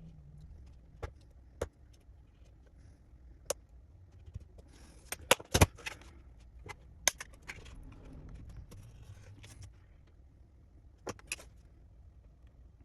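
Small hard parts and tools being handled and set down on a workbench: scattered clicks and taps, with a louder cluster of clatters about five and a half seconds in and a pair more near the end.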